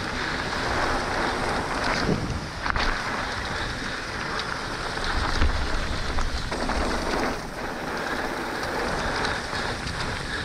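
Wind rushing over a helmet camera's microphone as a mountain bike rolls down a dirt trail, with tyre crunch and scattered knocks and rattles from the bike over bumps.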